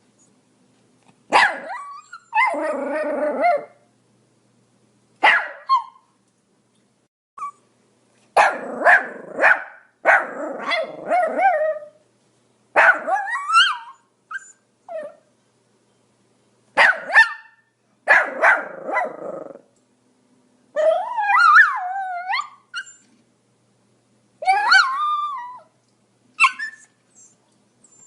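Pomeranian barking and yapping in short, repeated bouts with brief pauses between them, some barks drawn out into a whining, wavering yowl about two-thirds of the way through.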